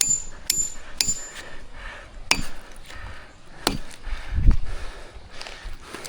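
Irregular sharp knocks, like wood being struck or chopped, about six strikes spaced unevenly, with a deeper, heavier thump about four and a half seconds in.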